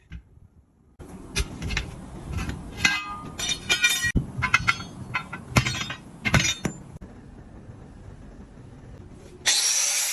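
Metal being struck and clinking, a run of sharp ringing knocks for several seconds, then a loud steady hiss starting near the end.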